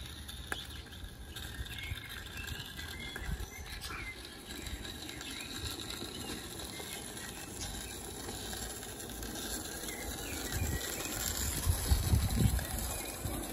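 Small live-steam garden-railway locomotive running with a goods train, with soft pattering from its exhaust and wheels on the track. The sound grows louder near the end as the train comes close. Birds chirp in the background.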